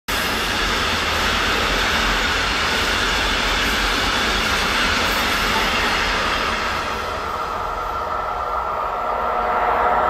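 Fast electric passenger train on a main line: steady rushing noise from the wheels on the rails. It eases about seven seconds in, then builds again near the end as a train hauled by a red SBB Re 460 locomotive with double-deck coaches approaches.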